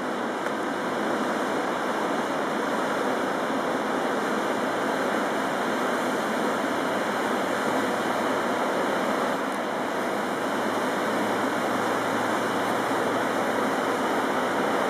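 Steady rushing of water from a fast boat's wake and bow spray, an even hiss with no engine note standing out.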